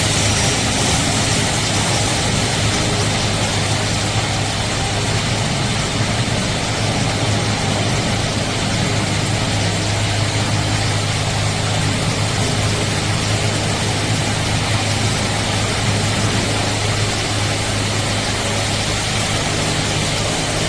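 Touchless automatic car wash machinery running: a loud, steady rushing noise of jets over a constant low machine hum.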